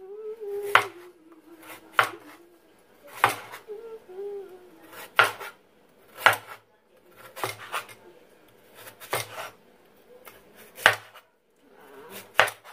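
Kitchen knife slicing a raw carrot into rounds, each stroke ending in a sharp chop on a plastic cutting board, about ten chops at a slow, even pace of roughly one a second.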